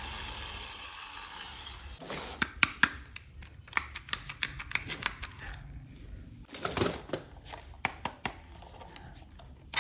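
Small plastic toy pieces clicking and tapping irregularly as they are handled and set down, after about two seconds of a steady rustling hiss.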